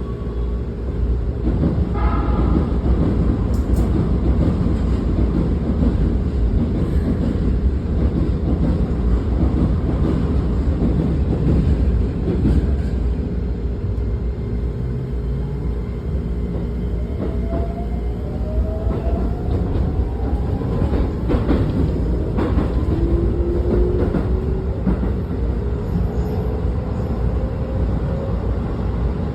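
Keikyu New 1000 series electric train: a steady rumble with a short chime about two seconds in, then from a little past halfway a rising electric motor whine as the train starts to pull away.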